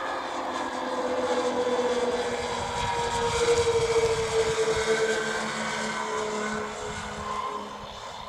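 The two Saito FG-19R3 three-cylinder four-stroke radial gas engines of a radio-controlled B-25 model running in flight, turning three-blade propellers. The sound grows loudest as the plane passes close overhead about four seconds in, then fades as it flies away, the engine pitch slowly falling.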